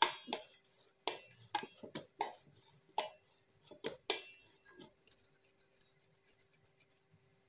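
Hands kneading dough in a steel bowl: sharp, irregular knocks and clinks of knuckles and dough against the metal, about one every half second. They stop about five seconds in, leaving faint rubbing.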